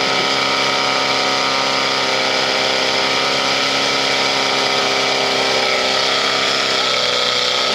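Portable fire pump engine running flat out, a loud steady drone that wavers slightly in pitch near the end, as it drives water through the two hose lines.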